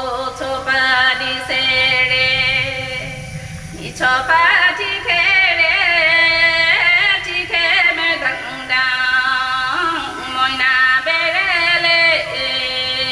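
A woman singing a folk song in a Deori tune, with long held notes that slide between pitches. The singing breaks off briefly about three and a half seconds in, then resumes.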